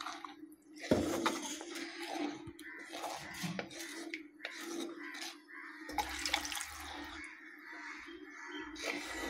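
Wooden spatula stirring a thin, watery masala gravy in a clay pot, with irregular wet sloshing and scraping. The ground masala has just been thinned with water.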